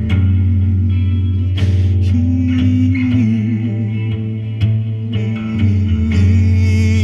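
Instrumental break in a rock song with no singing: guitar and bass sustain chords over a steady drum beat, with a wavering guitar note about two to three seconds in.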